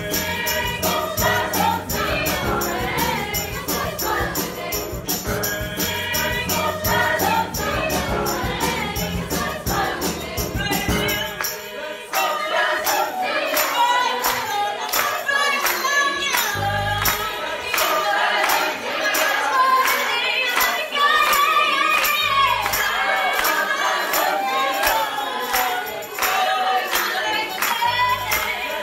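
Mixed school choir singing an upbeat song, with soloists on handheld microphones, over a steady percussive beat. About eleven seconds in the deep low accompaniment drops out, leaving the voices and the beat.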